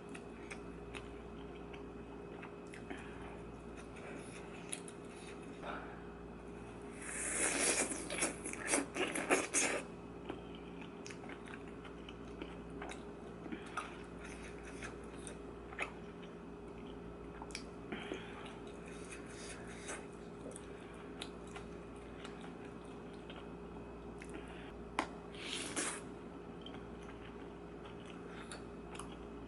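A person eating spicy rice-cake tteokbokki close to the microphone: chewing with many small wet clicks. There is a louder, noisier stretch about seven to ten seconds in and a shorter one near the end, over a faint steady hum.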